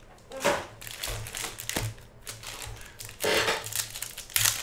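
Foil wrappers of 2017 Panini Contenders basketball card packs crinkling and tearing in the hands, in irregular bursts, the loudest a little after three seconds in.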